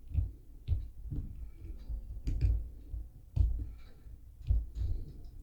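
Light knocks and clicks at irregular intervals, about a dozen in all, a few of them sharper taps.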